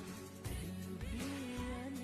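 Background music: a South Asian pop song with a sung melody over a steady beat.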